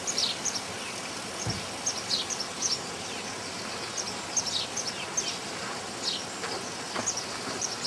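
Small birds chirping: short, high calls that fall in pitch, scattered throughout, over a steady outdoor hiss.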